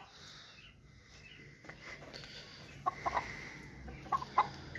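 Aseel chicken clucking: a short run of quick clucks about three seconds in and another couple near the end, over quiet yard background.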